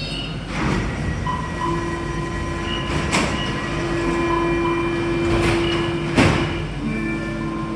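Interior sound of a driverless Alstom MP14 rubber-tyred metro train: a steady mechanical hum with several held tones, broken by four sharp knocks, the loudest near the end.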